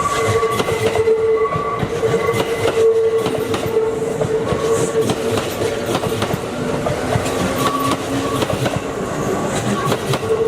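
Kintetsu 8600-series four-car electric train passing over a level crossing, its wheels clacking over the rail joints. The crossing alarm rings steadily the whole time.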